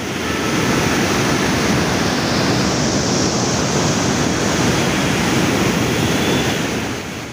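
Floodwater released through open dam spillway gates, rushing as loud, steady white water over rocks; it swells in at the start and fades near the end.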